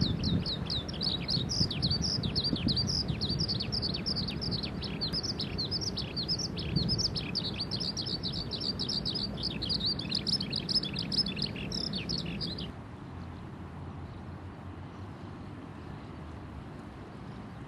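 Eurasian skylark singing a long, unbroken run of rapid high chirps and trills over a low background rumble. The song cuts off suddenly about three-quarters of the way through, and the rumble drops with it, leaving a quieter steady hiss.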